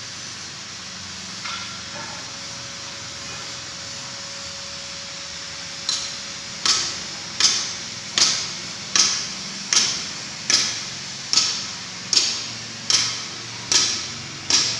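Hammer blows on the steel drum of a concrete mixer truck during repair: a couple of single knocks, then from about six seconds in a steady series of about twelve strikes, a little under a second apart, each with a short metallic ring.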